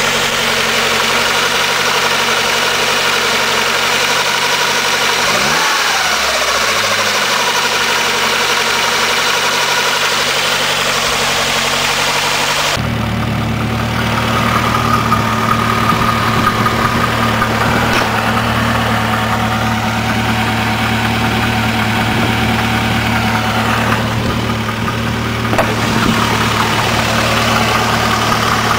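Ford Escort ZX2's engine idling with a light, steady knocking, caused by a failing water pump. About thirteen seconds in, the sound changes abruptly and a stronger low hum comes in.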